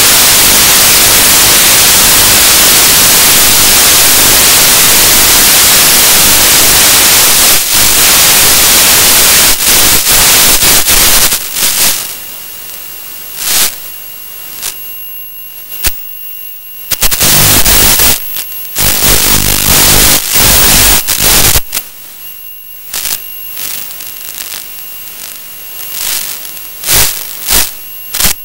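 Hiss of radio static from an analog FPV video receiver's audio output, loud and steady for the first eleven seconds or so. It then drops to a quieter background with faint steady high tones, broken again and again by sudden bursts of static as the video signal drops in and out.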